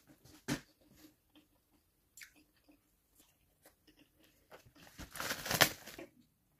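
Wet mouth clicks and smacks of chewing soft jackfruit flesh, then a loud crinkling rustle of a plastic bag, lasting about a second and a half, as the cut jackfruit is covered.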